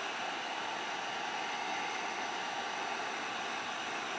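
Handheld electric heat gun running, a steady rush of blowing air as it heats the wiring.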